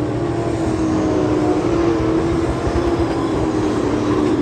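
Dirt modified race cars running laps on a dirt oval, their V8 engines held at high revs in a steady, slightly wavering drone, with one car passing close.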